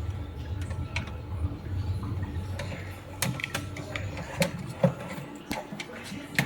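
Irregular clicks and light knocks of work on a water pump, over a low steady hum.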